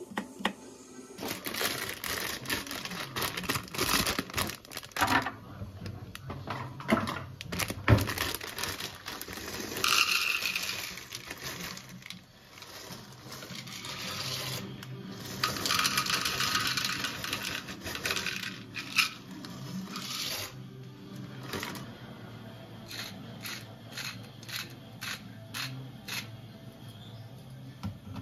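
Chef's knife chopping garlic on a cutting board: repeated sharp taps of the blade on the board, with stretches of blade scraping, over soft background music.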